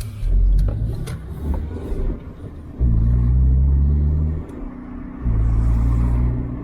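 Honda Civic's four-cylinder engine pulling the car along, rising in pitch under acceleration twice with a short drop in between, as at a gear change, over a low road rumble.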